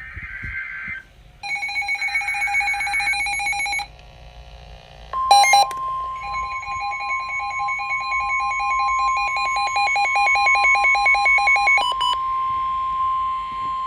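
Emergency alert signalling ahead of a severe thunderstorm warning: a short buzzy data burst, then rapid rhythmic electronic beeping. About five seconds in comes a loud short burst, then a long steady tone with fast pulsing beeps over it, which stop near the end.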